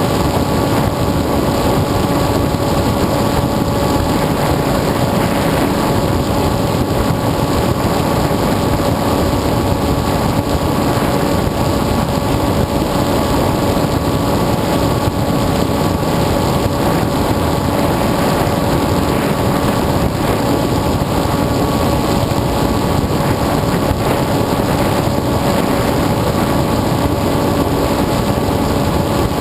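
Onboard sound of an FPV model aircraft's electric motor and propeller running steadily in flight. It is an even whine over a steady rushing noise that stays unchanged throughout.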